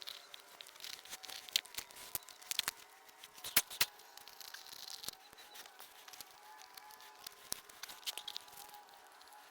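Foam-backed ribbed rubber floor mat being cut and worked by hand: irregular crackling and tearing, with sharp clicks scattered throughout and a few louder ones around the middle.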